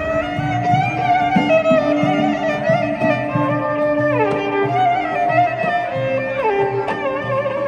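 Live ensemble playing a traditional tune: violins carry the melody, sliding down between notes twice in the second half, over a lute and a frame drum.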